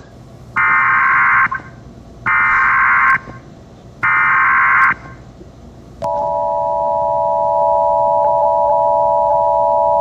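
Emergency Alert System test signal: three short screeching data bursts of the SAME header, each just under a second, then about six seconds in the steady two-tone attention signal starts and holds.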